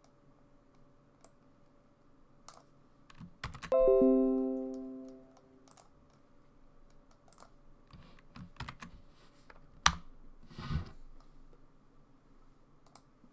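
Computer keyboard keys and mouse clicks tapping sporadically. About four seconds in, a single electronic desktop notification chime rings and fades over about a second and a half. A sharp click comes near the end.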